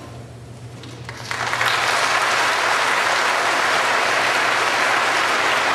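Audience applause that breaks out about a second and a half in after a short hush, then holds steady.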